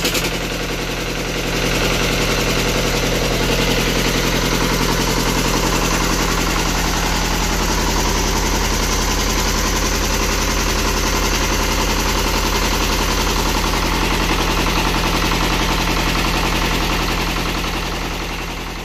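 Eicher two-cylinder diesel engine running steadily on test after a fresh oil and filter service, with an even, rapid beat from its firing strokes.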